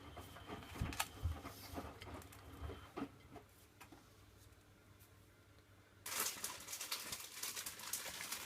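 Miele WDA110 washing machine mid-wash: the drum tumbles wet laundry with irregular knocks and patter, pauses for a couple of seconds, then starts turning again about six seconds in with a sudden, louder rush of patter and splashing.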